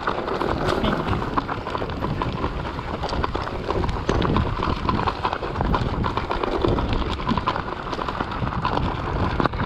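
Mountain bike rolling over a rough, stony trail: a continuous rattle and clatter of tyres on loose rocks and the bike shaking over them, with wind rumbling on the microphone.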